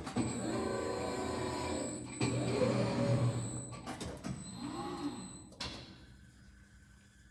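RAS Turbobend CNC sheet-metal folding machine running through a movement, its drive motors humming with a pitch that rises and falls. It starts suddenly and dies away after about six seconds.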